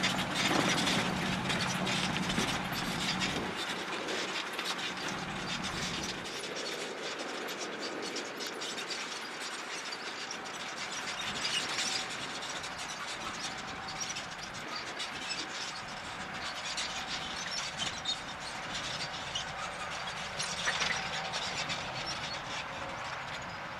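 Valtra tractor at work ploughing, its engine running steadily with many small clicks and rattles over it. The low engine note drops away about three seconds in.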